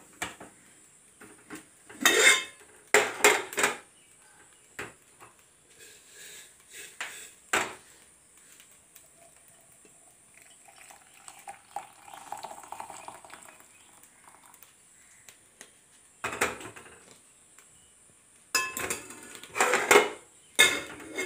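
Stainless-steel pots and cups knocking and clanking against each other and the stovetop, in several separate bursts. About halfway through there is a softer stretch of hot water being poured from a steel pot into a glass.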